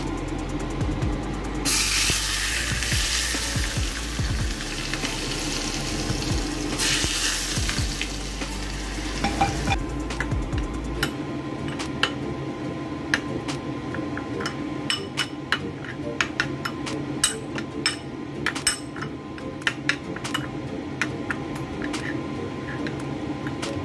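Hot oil poured onto chopped ginger and spring onion, sizzling hard for several seconds and dying away about ten seconds in. Then a metal spoon stirs the ginger-scallion dipping sauce, clicking and clinking again and again against the ceramic bowl.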